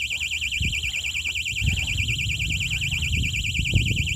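Electronic fishing bite alarm ringing continuously with a fast warbling high tone, about ten wobbles a second, signalling a bite. Irregular low rumbles and knocks sit underneath.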